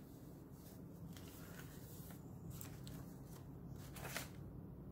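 Pages of a handmade paper junk journal being turned and handled: faint paper rustles and soft flicks, the clearest about four seconds in, over a low steady hum.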